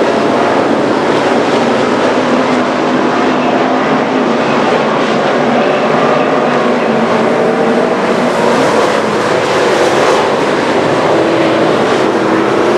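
Several street stock race car engines running hard together, a steady loud din with pitches rising and falling as the cars go around the track.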